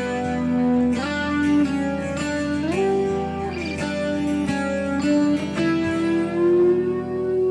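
Background music led by guitar: plucked notes with slide-guitar glides up and down in pitch, settling into one long held note near the end.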